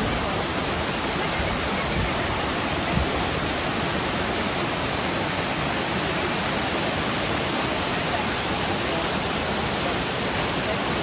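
Steady, loud rush of a waterfall: an even wash of falling water with no breaks.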